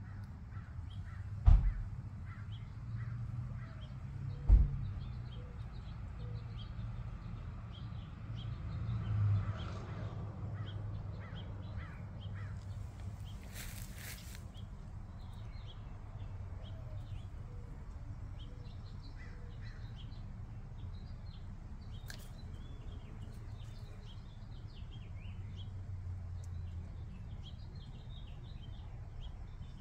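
Birds chirping in short calls throughout over a steady low outdoor rumble. Two sharp thumps near the start are the loudest sounds, and there is a brief rustling hiss about halfway through.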